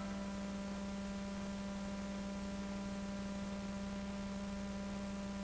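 Steady electrical hum, one low tone with fainter higher tones, over an even background hiss.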